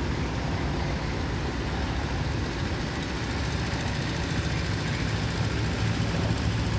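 Engines running steadily, a low drone under a wash of broad noise.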